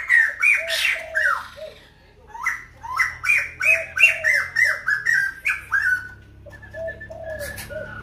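Caged khướu đầu bạc, a white-headed laughingthrush, singing a fast run of loud slurred whistles. Lower hooting notes run beneath the whistles. The song breaks off briefly about two seconds in, then goes on again and fades to softer notes near the end.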